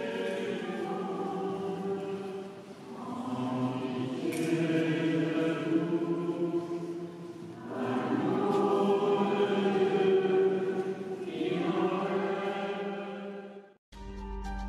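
Many voices singing a hymn together in a large stone church, in long held phrases with short pauses between them. About a second before the end the singing cuts off abruptly and instrumental background music starts.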